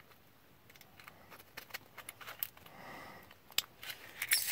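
Small metal clicks and taps of a lock cylinder and its parts being handled, scattered and faint, with a quick run of clicks near the end.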